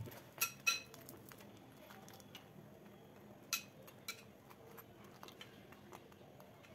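Metal spoon clinking against the cookware: two short ringing clinks close together under a second in, then two more about three and a half and four seconds in.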